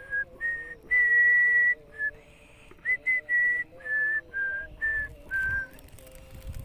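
A person whistling a string of about ten short, steady notes, the longest one about a second in, to call a dog. The notes stop near the end.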